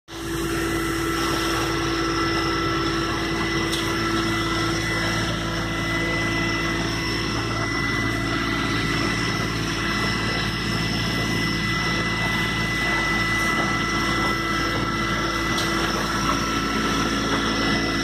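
Motor cruiser's engine running steadily under way, a constant drone with a high whine, heard inside the canvas canopy over a hiss of rain and spray on the windows.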